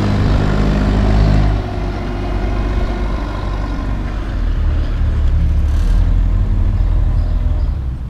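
Semi truck's diesel engine idling, a low steady rumble that dips slightly about a second and a half in and swells again after about five seconds.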